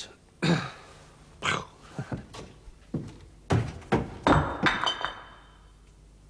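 An irregular run of about a dozen thuds and knocks over some four seconds, stopping about five seconds in.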